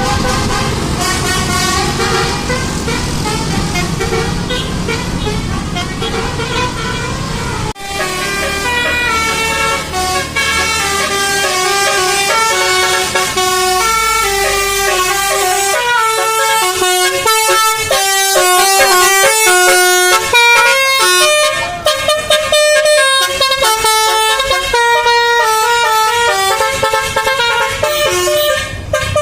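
Indonesian bus telolet horns, a set of electrically switched multi-trumpet air horns, playing quick melodic tunes note after note. An abrupt cut about eight seconds in switches to another burst of horn melody, which runs faster and more choppily in the second half.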